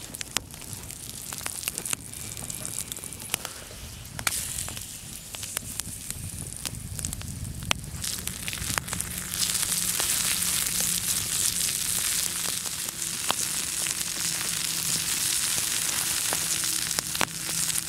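Campfire crackling with sharp pops under a stone slab. About halfway through, a steady loud sizzle takes over: a beef steak frying on the hot stone, with the fire still popping beneath.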